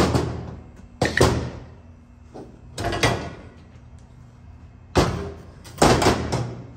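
A series of loud metallic clanks and bangs, about five of them spaced irregularly, each ringing out and fading over half a second to a second. They come from heavy strut parts and tools being handled and set down on a metal workbench.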